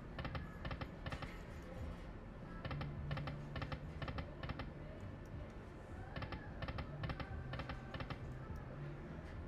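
Dragon Link video slot machine clicking in short runs of rapid ticks several times over, as its reels spin and stop, over a low steady hum.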